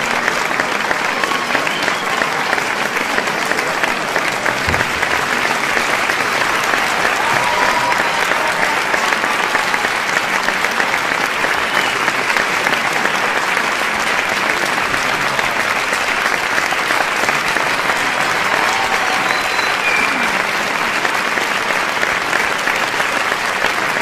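A large audience clapping steadily and densely, with occasional cheers and shouts rising over the applause.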